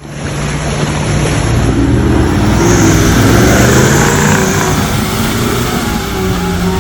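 Off-road vehicle engine running under load and revving, its pitch wavering up and down.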